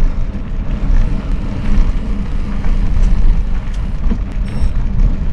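Wind rushing over the microphone of a camera on a mountain bike riding along a field track, with the tyres rumbling and short rattles and clicks from the bike.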